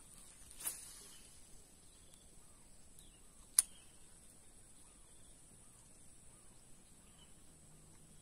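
Quiet outdoor ambience: a steady high insect drone and a bird giving a string of faint short chirps, with one sharp click about three and a half seconds in and a softer swish near the start.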